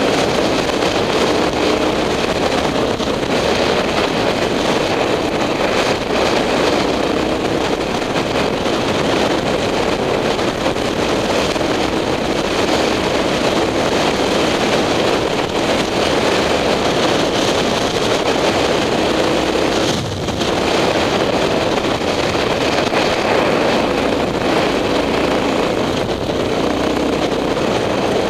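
Motorcycle engine running steadily under way, mixed with wind noise on the microphone; the sound dips briefly about two-thirds of the way through.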